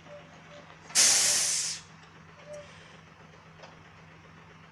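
A short, loud hiss of compressed air escapes from the truck-and-trailer air brake hose at the drawbar coupling about a second in, fading out after under a second. A truck engine hums faintly in the background.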